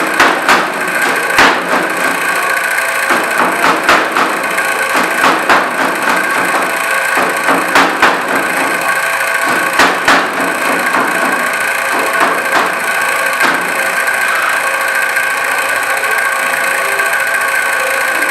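Kitchen knife chopping onion on a plastic cutting board: irregular sharp knocks, busiest in the first two-thirds and thinning out near the end, over a steady mechanical hum.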